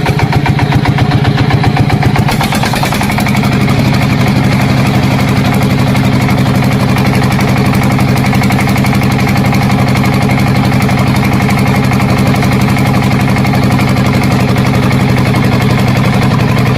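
An engine idling steadily with a fast, even firing beat; its note changes slightly about three seconds in.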